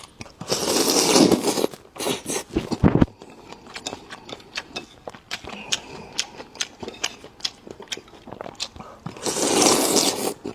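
Close-miked eating sounds: chewing and biting with many short wet mouth clicks. There are two louder noisy stretches of about a second each, one shortly after the start and one near the end.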